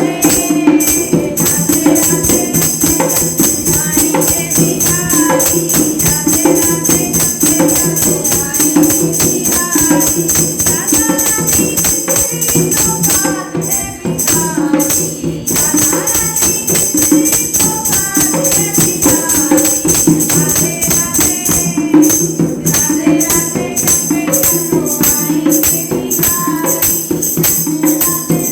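Women singing a Krishna bhajan over jingling percussion such as a tambourine, which keeps a fast, even beat. The jingles drop out briefly about 14 seconds in.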